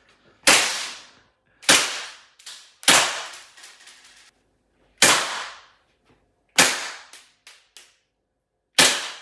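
BB gun firing six shots, one to two seconds apart, each a sharp crack with a short fading tail, with a few fainter clicks between shots.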